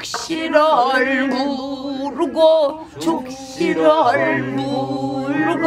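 Male and female voices singing pansori together, unaccompanied, in the Korean folk vocal style, holding long wavering notes that slide between pitches.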